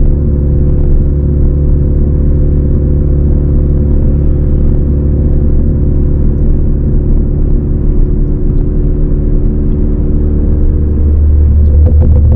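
2018 Ford Focus ST's turbocharged 2.0-litre four-cylinder running at steady revs through a Roush aftermarket exhaust: a constant low, droning cruise note. It grows a little louder near the end.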